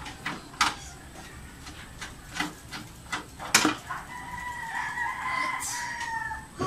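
Screwdriver and small screws clicking against metal as a motherboard is screwed into a steel PC case, a sharp click every half second or so. Over the last two seconds a long, level-pitched animal call is heard in the background.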